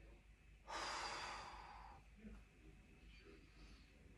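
A man's long breath out while holding a deep forward-bend stretch. It is a soft rush of air that starts about a second in and fades away over a little more than a second, with near silence around it.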